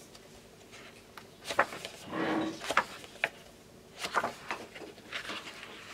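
Sheets of a 30 × 30 cm designer paper pad being turned over one after another, a handful of short paper rustles and taps.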